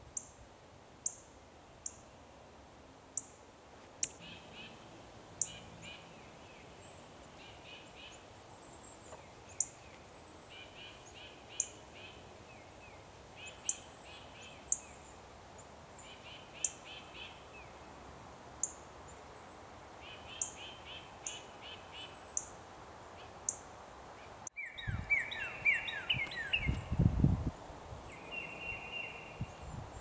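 A northern cardinal giving repeated sharp, high chip notes, about one every one to two seconds, with another bird's short trilled phrases fainter in the background. About two-thirds of the way through the sound changes abruptly: a few descending whistled notes over low rumbling thumps, which are the loudest part.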